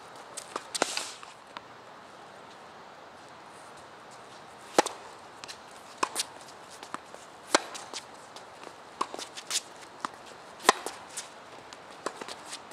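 Tennis balls struck by rackets and bouncing on a hard court during a rally: sharp pops about every one and a half seconds, the loudest in the second half, with fainter shoe scuffs and steps on the court between them.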